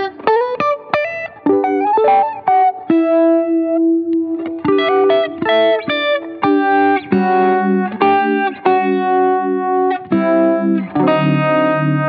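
Electric guitar played through a Fulltone Mini Deja Vibe, a Uni-Vibe-style modulation pedal. Quick single-note phrases and a held note give way to fuller chords about six and a half seconds in.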